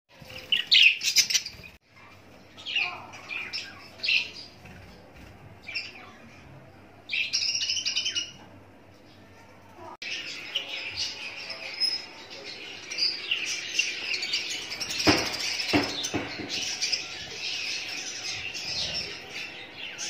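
Budgerigars chirping, first in separate short bursts, then from about halfway as a denser, continuous chatter of many birds. Two sharp knocks come about three-quarters of the way through.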